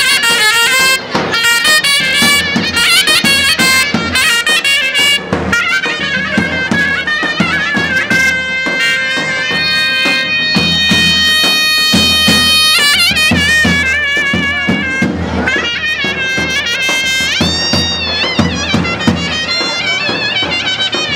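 Live Greek folk music: a loud reedy wind instrument plays a fast, ornamented melody with drum beats underneath. The melody holds one long note in the middle, then slides up to a higher note near the end.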